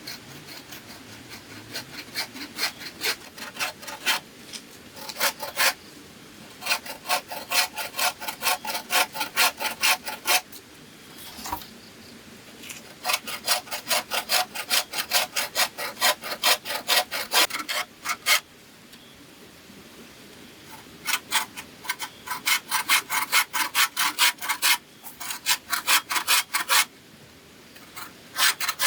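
A hand tool rasping through bamboo in rapid back-and-forth strokes, about four a second. The strokes come in bursts of a few seconds with short pauses between.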